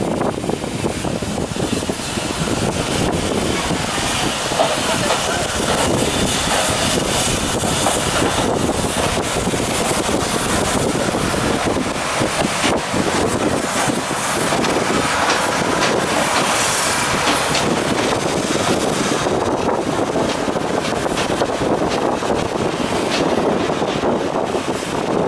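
Steam locomotive No. 85, a 4-4-0, running slowly with its carriages, mixed with steady wind buffeting the microphone.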